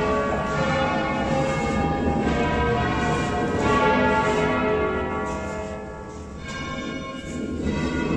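The church bells of Verona Cathedral, a concerto of eleven tuned in A, rung by hand on ropes in the Veronese style. Several bells strike and ring over each other, easing briefly about six seconds in before sounding out fully again.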